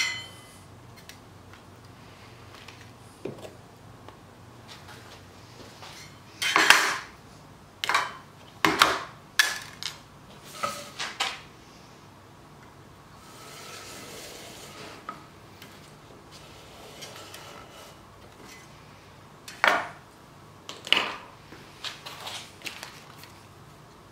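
Metal hand tools and a pine board being handled on a wooden workbench: scattered sharp clacks and knocks as a steel speed square and the board are set down and shifted, with a soft rubbing stretch about halfway through.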